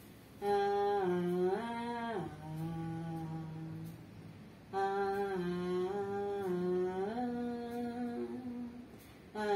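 A woman humming a slow lullaby tune with closed lips, in two long phrases of held, gently stepping notes, with a breath between them about four seconds in.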